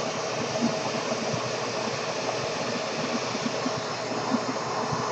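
A vacuum running with a steady rushing hum. Any hiss of air escaping from the toy's balloon is lost in it.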